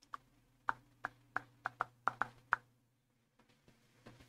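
A run of about nine sharp key clicks on a computer keyboard, irregularly spaced over two and a half seconds, then a few fainter clicks near the end, over a faint steady hum.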